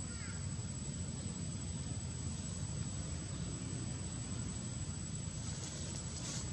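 Steady low rumble of outdoor background noise, with a thin high tone throughout and a brief crackle near the end.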